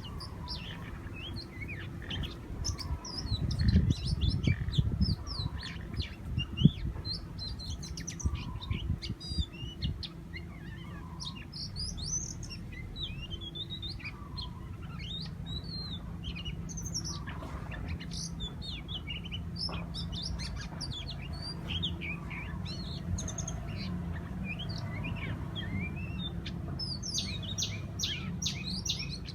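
Several birds chirping and calling over one another in short, quick phrases, busiest near the end, over a steady low drone. About four to seven seconds in, a loud low rumbling and bumping rises above everything.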